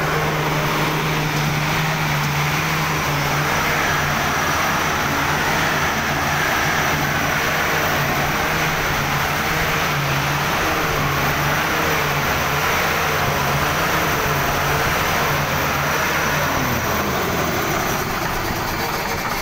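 CNG compressor unit running steadily at full noise, a constant low machine hum with a dense mechanical din over it.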